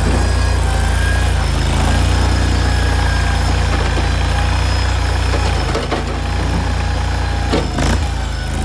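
JQ400 mini skid steer's engine running steadily under work, with a few sharp knocks about six seconds in and again near the end.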